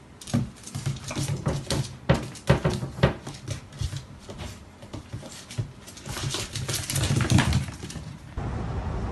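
A small puppy and a long-haired cat scuffling on a hard kitchen floor: a quick, irregular run of claw clicks, paw patter and light knocks against the floor and cabinets.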